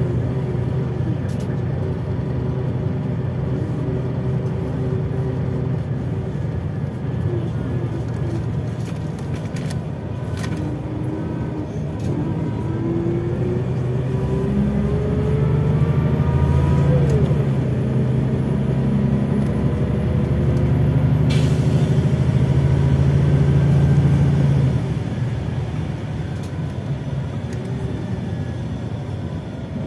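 Scania OmniLink I city bus heard from inside the passenger cabin while under way: a steady engine drone with rising drivetrain whines as it picks up speed. The sound swells through the middle and eases off again a few seconds before the end, with one sharp click partway through.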